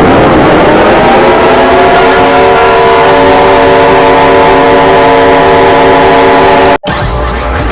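Air-raid siren winding up over the first second or so to a loud, steady chord of several tones. It cuts off sharply near the end, and a lower, rougher sound takes over.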